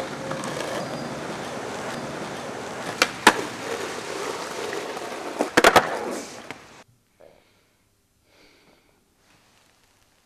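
Skateboard wheels rolling on a concrete sidewalk over street noise, with sharp clacks of the board about three seconds in and a quick cluster of clacks near six seconds as it is flipped and landed. The sound cuts off suddenly about seven seconds in, leaving near silence.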